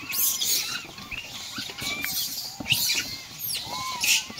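A troop of rhesus macaques feeding on scattered apples amid packing paper and straw: many short, high chirping calls, with a few brief rustles and crackles.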